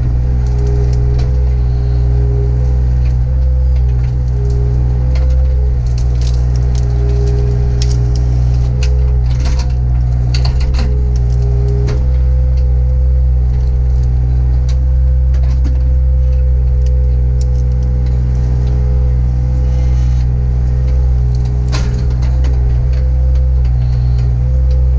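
Compact excavator's diesel engine running steadily, heard from inside the cab, with scattered cracks and snaps of buckthorn stems and roots breaking as the bucket tears them out, thickest around the middle and again near the end.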